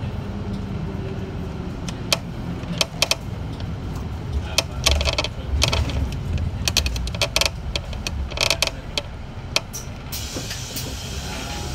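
City bus running with a steady low engine hum, overlaid from about two seconds in by a run of irregular clicks and rattles.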